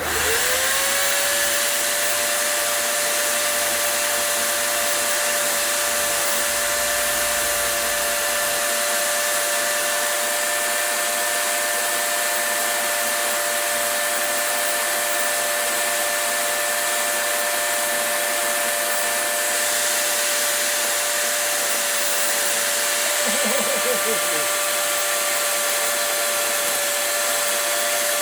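Dremel rotary tool with a carbide carving bit, spinning up to a steady high-pitched whine at the start and running at constant speed against green wood.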